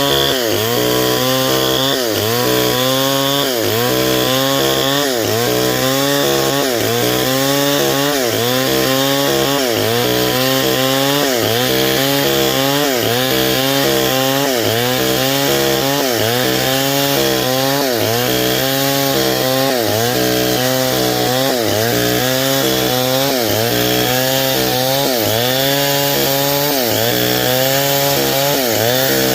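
Stihl 070, a large two-stroke chainsaw, ripping a durian log lengthwise at full throttle. The engine's pitch dips under load and recovers in a steady rhythm a little under once a second as the saw is worked through the cut.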